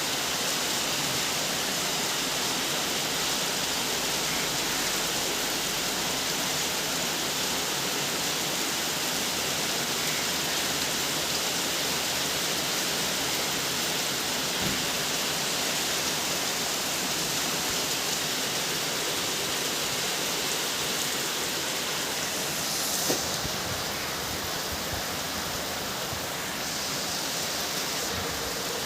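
Steady rain: an even, unbroken hiss, with one sharp tap about two-thirds of the way through, after which it is slightly quieter.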